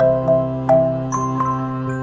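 Background music: a gentle bell-like mallet melody, about five notes in two seconds, over held chords.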